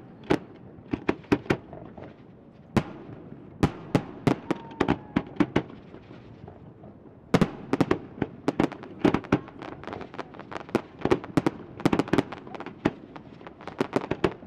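Fireworks display: aerial shells bursting in sharp bangs, scattered at first, then coming thick and fast from about halfway through.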